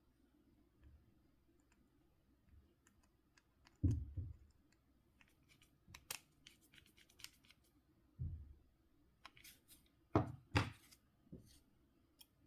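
Small clicks and taps of plastic phone parts being handled during reassembly of a Nokia C5-00, with a few duller knocks on the work surface: one about four seconds in, one about eight seconds in, and two close together about ten seconds in.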